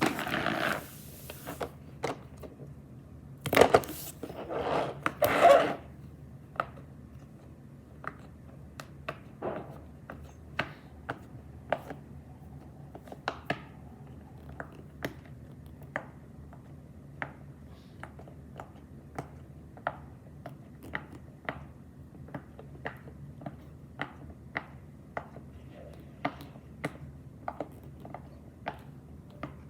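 Fidget toys being handled: a few longer scraping bursts in the first six seconds, then a long run of sharp separate clicks, about one or two a second.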